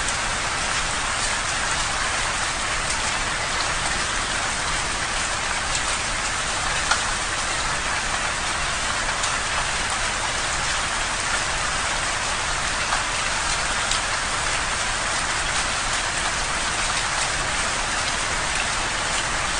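Steady rain falling on a window pane: an even hiss with frequent small ticks of single drops striking, and one louder drop tick about seven seconds in.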